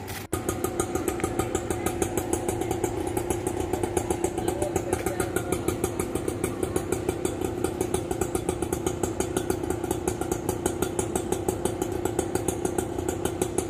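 Auto rickshaw engine idling with an even, rapid putter.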